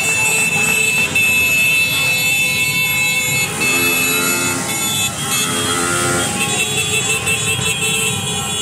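Street traffic of cars and motorcycles moving slowly in a celebration caravan, engines running, with horns sounding; a long horn blast from about four to six and a half seconds in, over a steady high tone.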